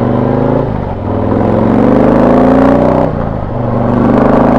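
Harley-Davidson V-twin with a Rinehart exhaust fitted with FuelMoto tunable inserts, accelerating on the road: the engine note climbs, drops at an upshift a little under a second in and again about three seconds in, then climbs once more. The exhaust note is throaty, toned down by the inserts.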